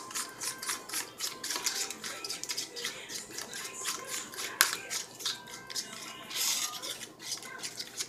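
A plastic fork beating a French toast egg mixture in a black plastic container: quick, rhythmic clicks and scrapes of the fork against the container, about three or four strokes a second, with one louder knock about four and a half seconds in.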